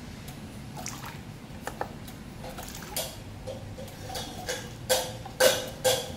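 Small glass bottle being handled and set down on a plastic digital scale: scattered light knocks and clinks, with a few louder sharp knocks close together near the end.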